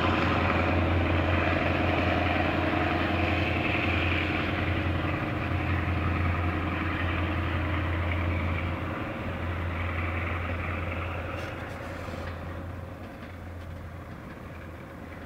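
A passenger train hauled by a DE 24000 diesel-electric locomotive pulls away. Its engine's steady low drone and the train's running noise fade gradually as it recedes.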